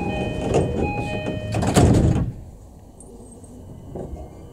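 Train door-closing chime, a repeating two-note ding-dong, sounds while the E233-series commuter train's sliding doors run shut. The doors close with a thud about two seconds in, and the cabin goes quieter.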